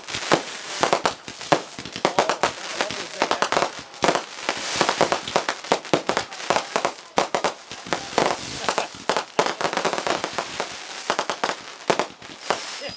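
Fireworks going off in quick succession: dense, overlapping bangs and crackling from aerial bursts throughout, with a high falling whistle near the end.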